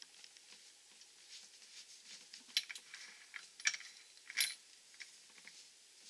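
Soft rustling and small metallic clicks of a cotton buffing wheel being twisted by hand onto a bench grinder's threaded arbor, with three sharper clicks about two and a half, three and a half and four and a half seconds in.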